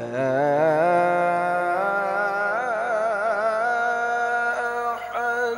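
A qari's solo melodic Quran recitation (tilawat): one long, ornamented phrase of held notes, wavering and climbing higher about two seconds in, with a brief break near the end.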